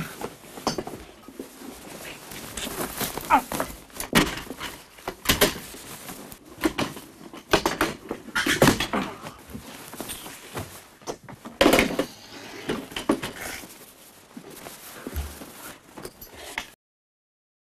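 Two people scuffling and wrestling on and beside an examination couch: irregular bumps, thumps and rustling, with some short vocal noises, then the sound cuts off abruptly near the end.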